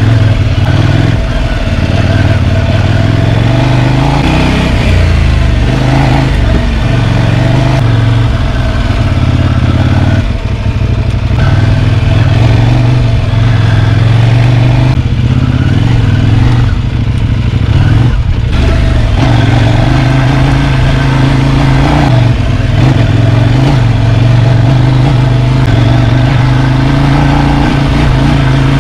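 Twin-cylinder adventure motorcycle engine pulling up a dirt track, its note rising and falling with the throttle. It briefly drops off about ten seconds in and again around eighteen seconds.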